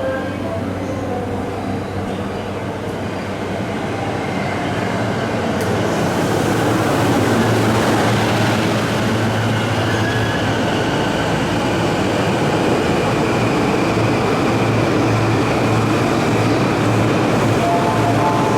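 Keihin-Tohoku line electric commuter train running into the platform: rolling noise grows louder about five seconds in and then holds steady, with a faint high whine over it.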